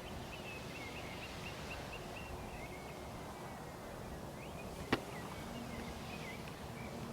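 A small bird chirping a quick run of short, high notes over steady outdoor background noise, with a few more chirps about five to six seconds in. A single sharp click about five seconds in.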